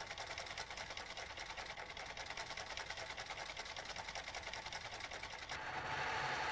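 Electric sewing machine running at speed on a cam-driven fancy stitch, a fast, even clatter of needle and mechanism. About five and a half seconds in it changes to a louder, steadier whirr with a low hum.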